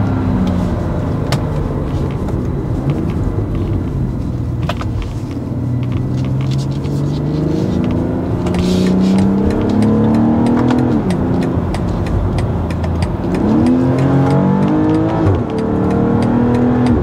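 BMW X3 M40i's 3.0-litre twin-scroll turbocharged straight-six pulling through the gears: its pitch falls at first, climbs steadily before dropping at an upshift about eleven seconds in, then climbs quickly again and drops at a second shift near the end.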